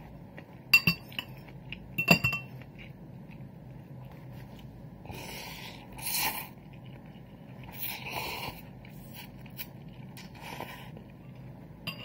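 A metal utensil clinking sharply against a dish twice, then slurping sounds as a mouthful is taken, twice, and another clink near the end.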